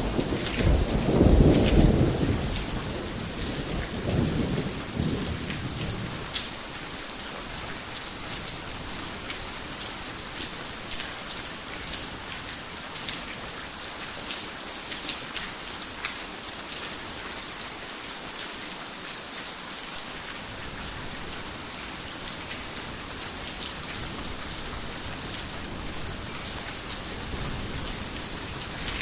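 A rumble of thunder fading out over the first few seconds, then steady heavy rain with scattered sharp drop impacts, falling on a garden house.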